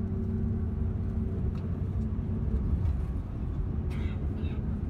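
Car engine and tyre noise heard from inside the car while driving: a steady low rumble with an even engine hum.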